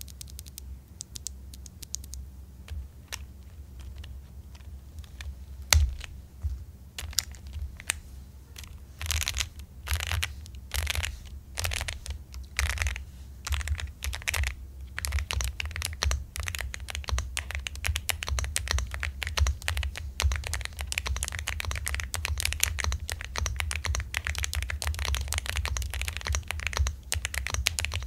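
Typing on a Monka K75 aluminium 75% mechanical keyboard with factory-lubed switches. It starts with scattered single keystrokes, has a run of heavier, slower strokes about halfway in, then goes into fast continuous typing.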